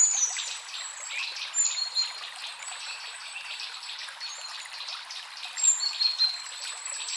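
Small birds chirping with short, high calls scattered throughout, over a steady rushing hiss.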